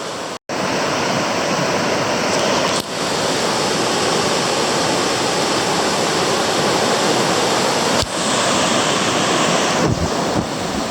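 Flash-flood water in a desert creek rushing steadily. The sound drops out for a moment just after the start.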